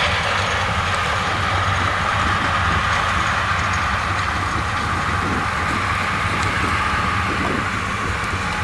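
Claas Lexion 760 TT combine harvester working through standing maize with a 9-row Geringhoff corn header. A steady low engine drone with a steady high whine running over it.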